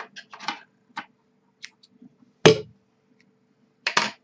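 Scattered short clicks and taps from hands handling the knitting and tools, with one louder knock about two and a half seconds in and a quick pair of clicks near the end.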